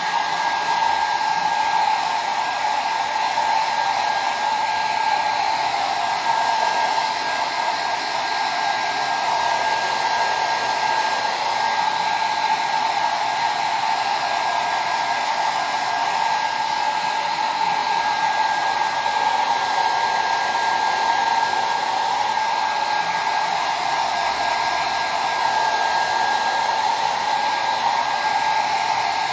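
Handheld hot-air dryer running steadily, drying fresh paint on a painted box: a constant rush of air with a steady high whine from its motor.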